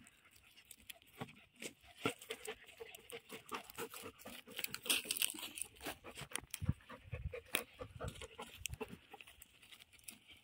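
Dogs digging and nosing in dry crop stubble: irregular crunching and crackling of dry straw and soil under their paws and snouts.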